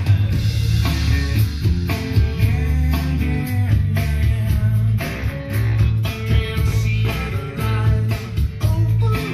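Guitar music with heavy bass played back over hi-fi loudspeakers, driven by a Soundstage Stage One hybrid Class A tube amplifier with an MXR graphic equalizer switched into the chain.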